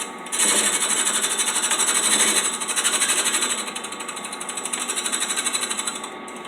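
A drill press spinning a cutter against the base face of a 54cc cylinder, a fast, even scraping chatter as metal is taken off to flatten the gasket surface. It gets louder about half a second in, eases a little around four seconds, swells again, then drops back near the end.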